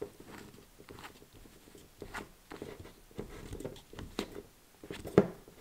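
Plastic screw cap being twisted by hand onto a glass syrup bottle: a run of small, irregular clicks and scrapes, with one sharper knock about five seconds in.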